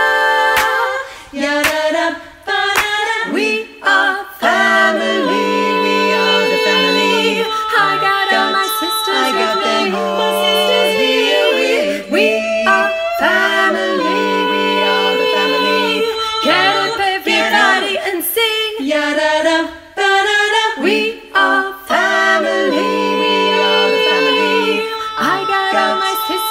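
Women's voices singing a cappella in close barbershop-style harmony, holding chords, with a few brief breaks between phrases.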